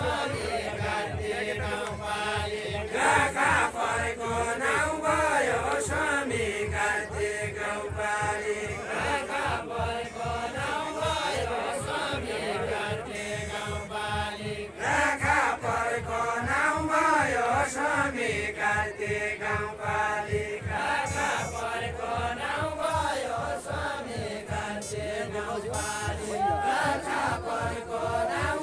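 Deuda, the Far-western Nepali folk song-dance, sung by a group of voices in long, wavering melodic phrases, with a steady low beat underneath.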